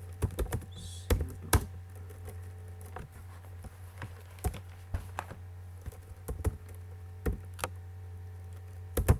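Computer keyboard typing: irregular keystrokes, some single and some in quick runs, over a steady low hum.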